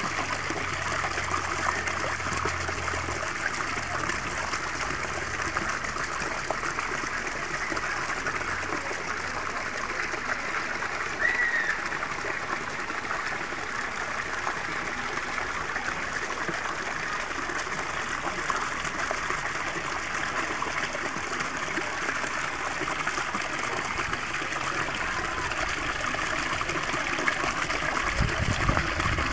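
Water pouring from a clay pipe spout into a terracotta basin of a garden fountain, a steady splashing trickle.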